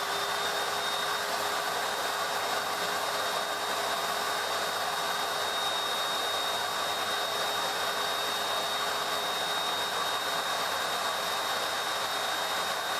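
Pet grooming dryer blowing steadily on a wet cat's coat: an even rush of air with a constant whine held on one pitch.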